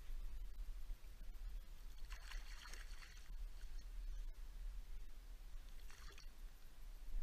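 River water splashing and sloshing around a landing net holding a netted brown trout: a longer burst about two seconds in and a short one about six seconds in, over a low steady rumble.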